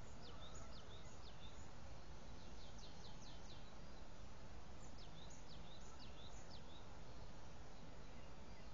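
A small bird singing three short phrases of quick, high, falling chirps over a steady low background hiss.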